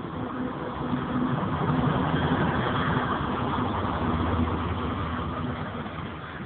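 Freight train passing: a steady mechanical rumble with a low hum. It swells about two seconds in and slowly fades near the end.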